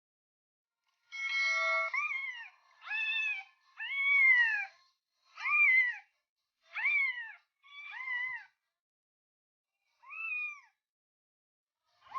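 A cat meowing over and over: about seven meows in quick succession, each rising then falling in pitch, with a pause before the last one.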